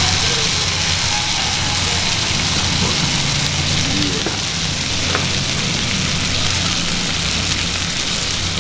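Mushroom sauce poured onto a steak on a hot cast-iron sizzling plate, sizzling steadily with a hiss.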